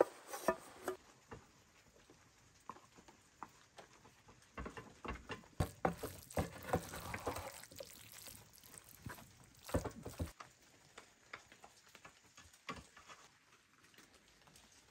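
A wooden spoon stirs chopped green beans, grated carrot and tomato paste in a hot metal pot, giving scattered knocks and scrapes against the pot along with wet squelching. The sounds grow fewer and fainter after about ten seconds.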